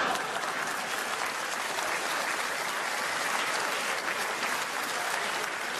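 Theatre audience applauding, with many hands clapping steadily.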